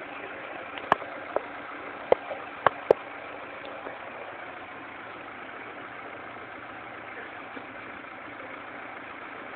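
A car engine idling steadily, with five sharp knocks between about one and three seconds in.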